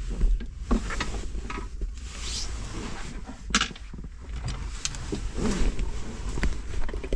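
Plastic dashboard trim around the factory radio being carefully worked loose by hand: scattered clicks, knocks and a brief scrape over a low rumble.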